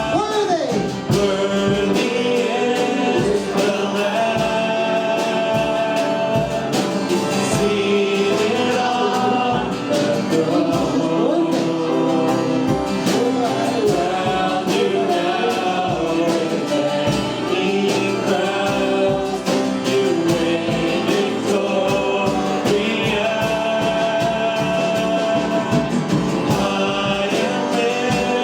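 Gospel worship song sung with instrumental accompaniment.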